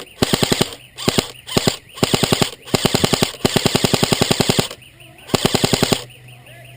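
G&G CM16 airsoft electric gun firing full-auto bursts close to the microphone: about six bursts of rapid clicking shots, the longest nearly two seconds, stopping about six seconds in.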